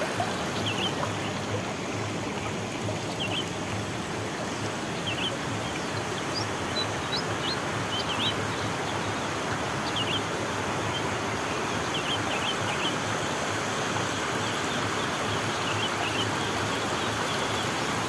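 Water rushing steadily down a small concrete irrigation channel. Short, high bird chirps come every second or two on top of it.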